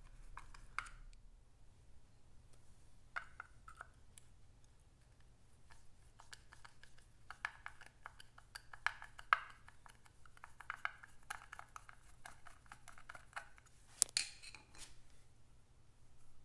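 Screwdriver backing small screws out of the polished alloy auto-advance cover on a 1951 Vincent Rapide's timing chest: a run of light metal clicks, scrapes and little rattles, with a sharper click about nine seconds in and another near fourteen.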